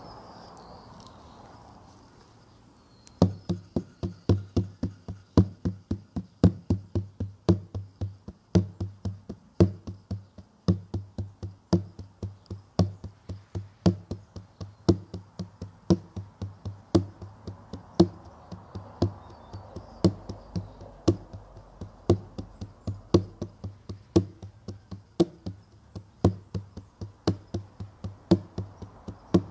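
A low-pitched hand drum beaten in a steady, even rhythm of roughly two to three strikes a second, each strike ringing briefly; the drumming starts about three seconds in.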